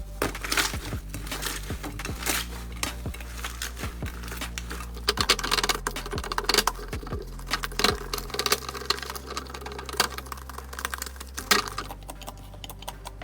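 Slime being squeezed and poked by hand, making quick irregular clicks, crackles and pops. Soft background music plays underneath.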